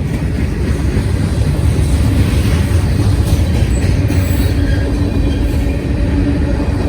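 CSX freight train rolling past, a steady loud rumble of steel wheels on the rails.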